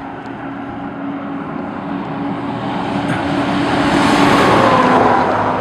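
A car passing close by: its tyre and engine noise swells to a peak about four seconds in, then fades, over a steady low hum.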